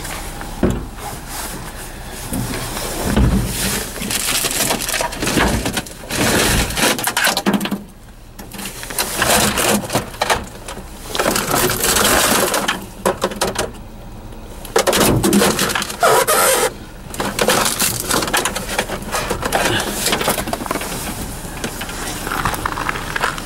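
Hands rummaging through discarded electronics in a dumpster: plastic cases, cables and other junk shifted, scraped and knocked together in busy bursts of clattering and crunching, with short pauses about 8 and 14 seconds in.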